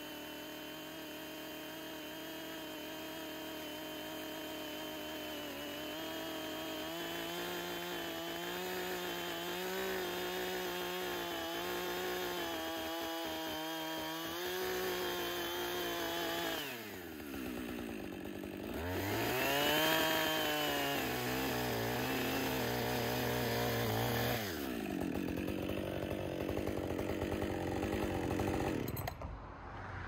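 Husqvarna two-stroke chainsaw cutting into a log under load, its engine pitch wavering as the chain bites. About seventeen seconds in the pitch drops, then the engine revs up high and falls back, runs on, and cuts off near the end.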